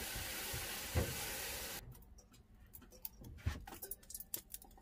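Heated aluminium cooking pot on a stove giving a steady hiss that cuts off suddenly about two seconds in, then scattered light ticks and crackles as cooking oil is poured into the hot pot.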